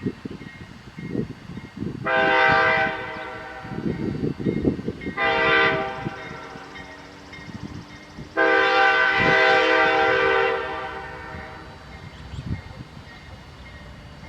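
Train horn sounding three blasts at a steady pitch: two short ones about three seconds apart, then a longer one of about two seconds.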